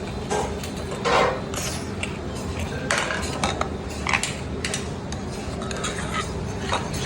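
Metal utensils clinking and scraping against metal pots and dishes in irregular strikes, the loudest about a second in, over a steady low background hum.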